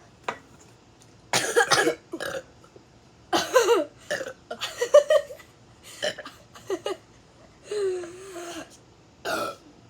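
A string of about six burps from two people taking turns, brought on by gulping carbonated Sprite, with a long drawn-out low burp about eight seconds in.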